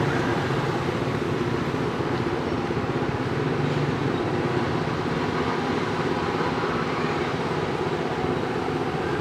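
Steady low background rumble with a faint, even hum, unchanging throughout.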